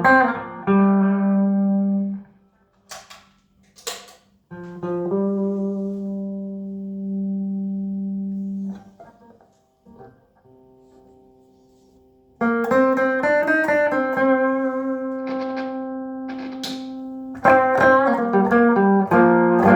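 Electric guitar with humbuckers played through a Trace Elliot Trident valve combo amp with 6L6 power tubes: chords and single notes left to ring out, with pauses between them. Short clicks and taps fall in the quiet gaps, and a louder chord is struck near the end.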